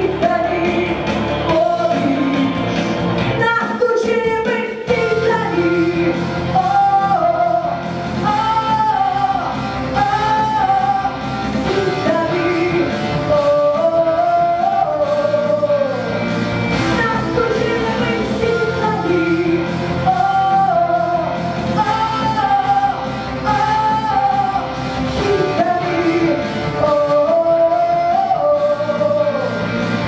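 A girl singing a pop-rock song into a handheld microphone over instrumental accompaniment, the melody rising and holding long notes.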